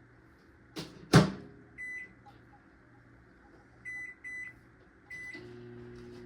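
Microwave oven door shut with a loud knock about a second in, then four short keypad beeps, and the microwave starting up with a steady hum near the end.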